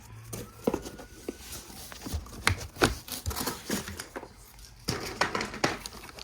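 A boxed part being handled: scattered taps and clicks with rustling of cardboard and packaging, busier near the end.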